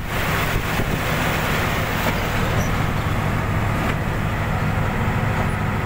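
Steady road and engine noise heard from inside a vehicle cruising on an expressway.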